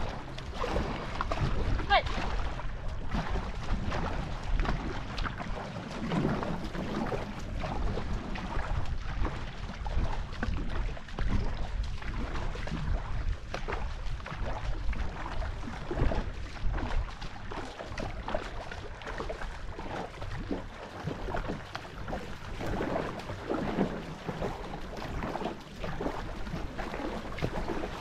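Paddles of a racing tandem canoe stroking through the water, with wind buffeting the microphone and snatches of voices.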